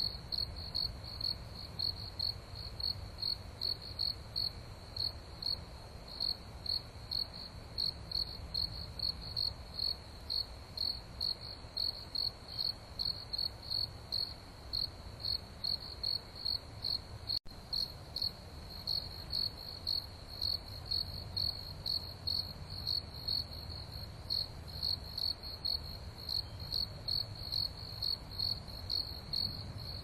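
A cricket chirping steadily, a high pulsed call repeating evenly about two and a half times a second, over a low background hum.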